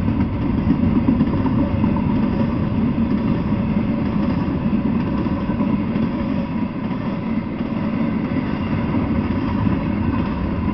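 Double-stack intermodal freight train's well cars rolling past at speed, a steady rumble of steel wheels on the rails.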